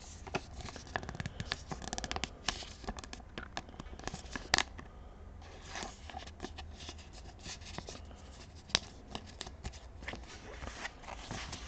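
Pokémon trading cards being handled and sorted by hand: a run of small scratchy rustles and ticks of card stock sliding and tapping, with one sharper click about four and a half seconds in.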